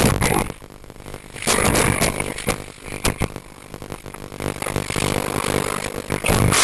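Electronic-style music playing, with irregular louder surges and a few sharp clicks.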